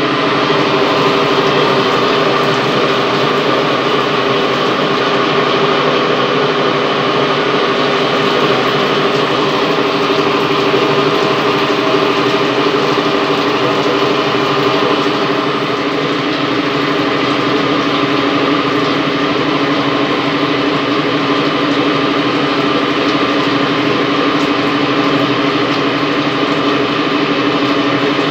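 CNC turning lathe running steadily, its spindle turning a bar stock part under the tool while flood coolant sprays over the cut. The sound is a steady machine hum of several held tones over a constant hiss.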